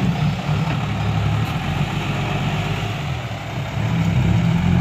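Six-wheel dump truck's diesel engine running at idle with its tipper bed lowered, then pulling louder about four seconds in as the truck moves off.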